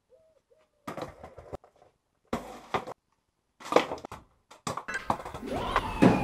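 A pigeon coos at the start. Then come four separate clatters and thunks as wooden skateboard decks are tossed out onto stone paving slabs. Near the end a steady din with a gliding, wailing tone comes in.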